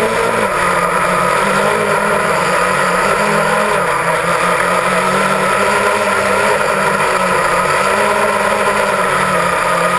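Quadcopter drone's electric motors and propellers whining steadily, close to the microphone, the pitch wavering slightly as the drone flies and descends.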